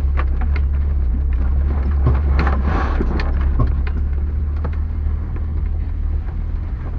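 Vehicle engine running with a steady low drone, heard from inside the cab, while the body knocks and rattles over a rutted mud track. A short rush of noise comes about two and a half seconds in.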